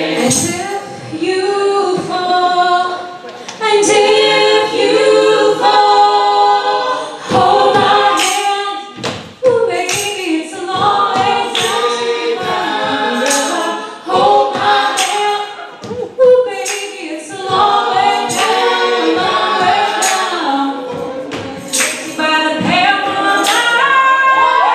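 An a cappella vocal group singing through microphones, several voices together with no instruments.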